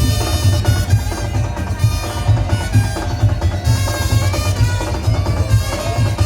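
Loud, lively band music with a heavy pulsing bass beat, percussion and several held melody lines over it.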